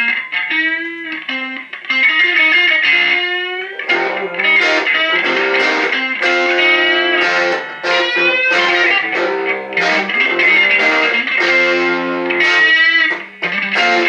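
Electric guitar played solo, a line of single notes and chords with bent notes and vibrato.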